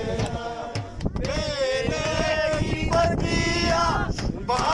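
A man singing a slow, chant-like devotional melody, holding and wavering on long notes, with a low rumbling noise underneath.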